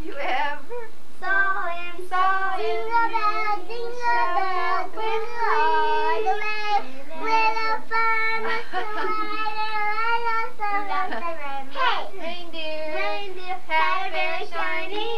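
Children singing a song together in high voices, holding and sliding between notes.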